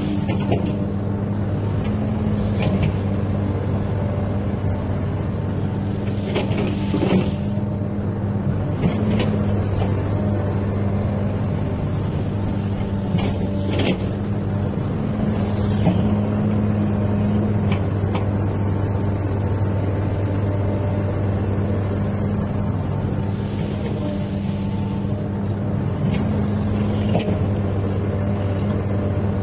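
XCMG excavator's diesel engine running steadily under work, with a few short knocks and clanks.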